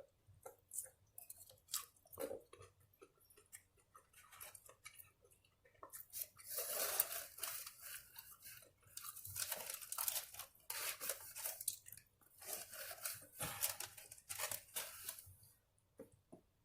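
A person chewing mouthfuls of taco close to the microphone, with crunching: a few small clicks at first, then crackly chewing in bouts of a second or two separated by short pauses.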